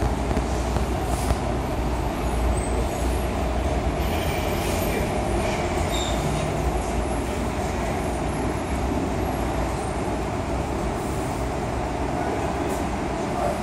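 Steady rumbling background noise, heaviest in the low end with an even hiss above it and no distinct events.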